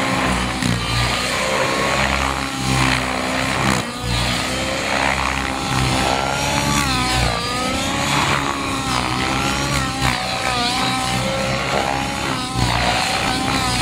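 Radio-controlled model helicopter flying aerobatics, its motor and rotor whine rising and falling in pitch again and again as the head speed and load change through the manoeuvres.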